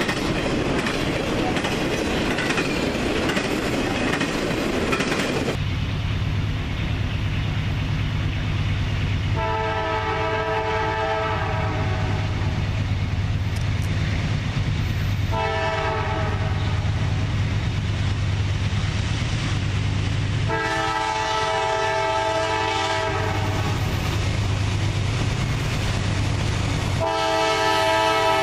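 Container cars of an intermodal freight train rolling past with steady rail noise. Then an approaching diesel freight locomotive's engine rumbles steadily while its multi-chime air horn sounds a long blast, a short one, another long one, and a fourth starting near the end.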